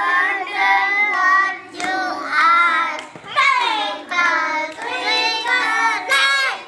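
Children singing, in high voices, in short phrases with brief breaks between them.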